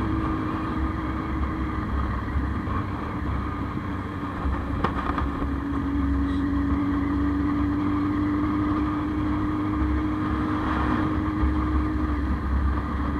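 Motorcycle engine running at a steady cruise, its pitch holding level, over a constant rumble of road and wind noise heard from on the bike.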